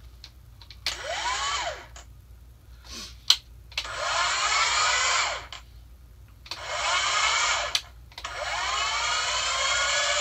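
Strikemaster Lithium 40V electric ice-auger power head run unloaded, with no auger bit fitted, in four trigger bursts: each time the motor whine rises as it spins up and falls as it coasts down, the last burst the longest. A sharp click comes about three seconds in. The motor runs fine on its stored lithium battery: "Sounds good to me."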